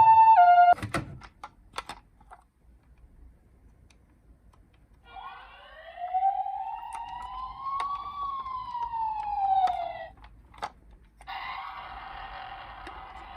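Toy emergency-vehicle sirens. A two-tone hi-lo ambulance siren cuts off just under a second in and is followed by a few clicks. A single slow wail then rises and falls over about five seconds, and a steady buzzing tone starts near the end.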